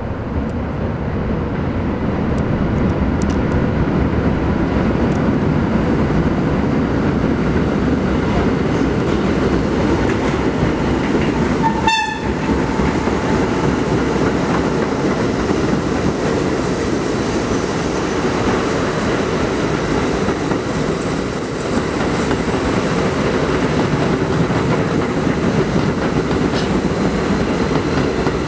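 A train of retired R42 subway cars passing on the elevated express track: steady rumble and clattering of wheels over rail joints, growing louder in the first couple of seconds as the cars come up alongside and then holding steady as they roll by.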